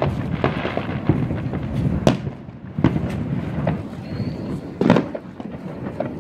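Many fireworks and firecrackers going off across the city at once, a continuous rumble of distant booms with sharper pops and bangs, the loudest about two and five seconds in. It sounds like a war zone.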